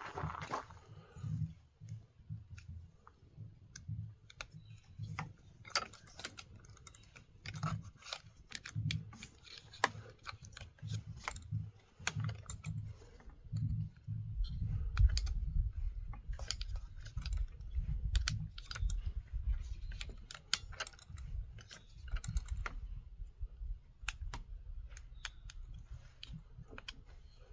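Irregular light clicks and taps of small chainsaw parts and hand tools being handled during reassembly, with a low rumble underneath that gets heavier about halfway through.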